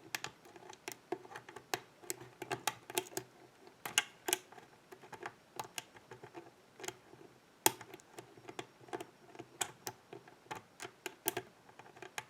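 Lock picking on an EVVA thumb-turn Euro cylinder: irregular light metallic clicks and ticks of a thin pick and tension tool working the pins in the narrow keyway, with a few sharper clicks among them.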